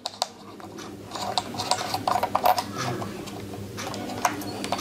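Hard plastic clicking and rubbing as a DJI Mini 2 remote controller is handled and unfolded: a string of small sharp clicks over a light rustle.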